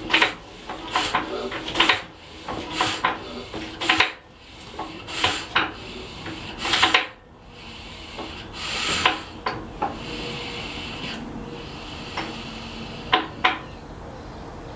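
A 1936 Lister 6/1 CS single-cylinder diesel engine winding down to a stop. Its heavy puffs come further and further apart and die out about nine or ten seconds in. Two sharp clicks follow near the end.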